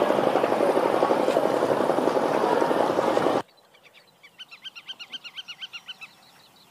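Diesel engines of long-tail tourist boats running loud and steady, cutting off abruptly about three and a half seconds in. Then a bird gives a fast run of repeated high notes, about nine a second, for about two seconds.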